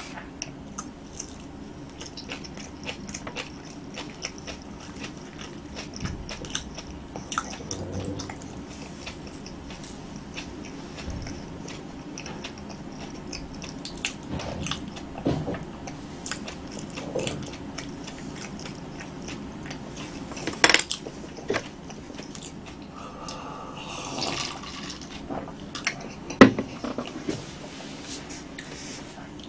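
Close-up eating sounds: chewing roasted sweet potato topped with kimchi, with scattered small clicks and taps from chopsticks and a jar, and a couple of sharper knocks.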